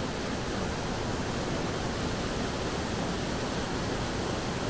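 Steady rush of a waterfall down in a slot canyon.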